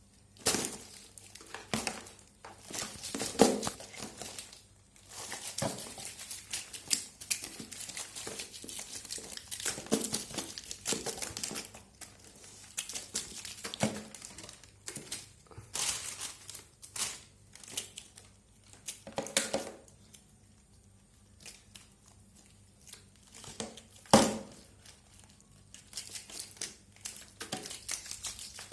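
Irregular crinkling and rustling close to the microphone, broken by sharp clicks and knocks, the loudest about three seconds in and again near the end.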